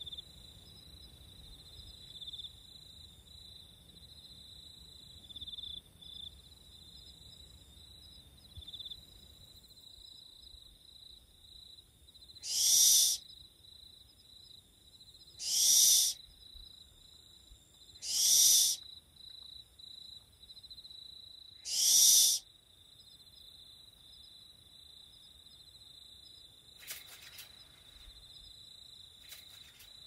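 Barn owl giving four harsh, rasping screeches, each about a second long and a few seconds apart, over a steady high insect trill.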